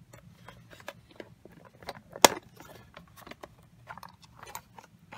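Clicks and light rattling of a hard plastic precision screwdriver-set case being handled and opened, with one sharp snap a little over two seconds in.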